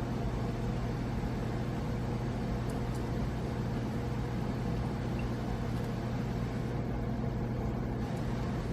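Steady low machine hum with a constant drone, with no distinct tool clicks or knocks.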